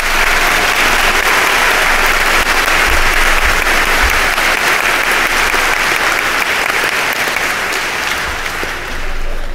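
Large audience applauding steadily, the clapping easing slightly near the end.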